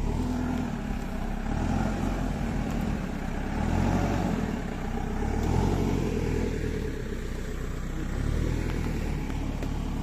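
Diesel engine of a wheeled front-loader tractor running as the machine drives past at close range, the engine note rising and falling a little around the middle.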